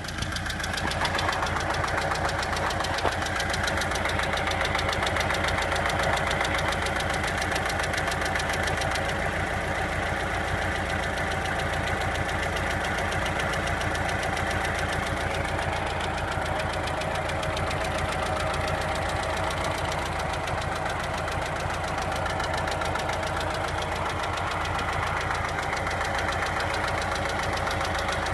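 Volkswagen Passat B5's ALZ 1.6-litre four-cylinder petrol engine running steadily with a rapid, even knocking from inside the engine, the fault being shown; it gets louder about a second in.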